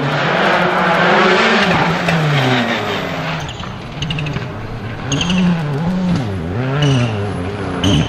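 Rally car engine driven hard. Its pitch rises and falls several times in quick succession as the driver revs, lifts and shifts through a section of the stage. In the first couple of seconds a loud rushing noise accompanies it.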